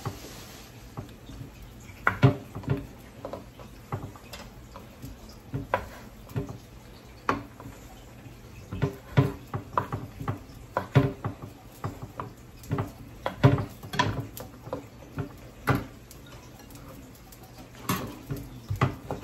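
Kitchen knife chopping ham on a cutting board: irregular sharp knocks, sometimes two or three in quick succession, with short pauses between.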